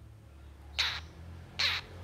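Long-tailed shrike giving two short, harsh, rasping calls about a second apart, over a faint low hum.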